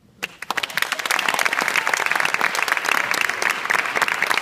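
Audience applauding in a hall: a few claps just after the start, quickly building within about a second into steady, dense clapping.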